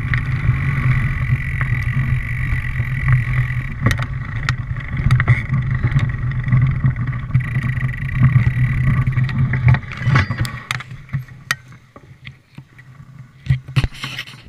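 A steady low mechanical hum, with a steady higher whine over it, fades out about ten seconds in. Scattered crunches and snaps of dry leaves and twigs run through it and are clearer near the end.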